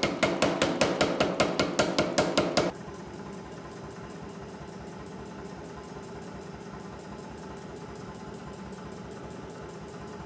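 Mechanical power hammer striking a red-hot steel axe head in rapid, even blows, about six a second, which stop about two and a half seconds in. After that the hammer's motor keeps running with a steady hum and a faint regular clatter.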